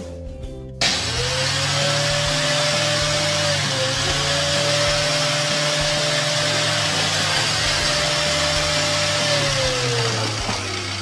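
Vacuum cleaner switched on suddenly about a second in: its motor whine rises to a steady pitch over a loud rush of air, then winds down near the end as it is switched off.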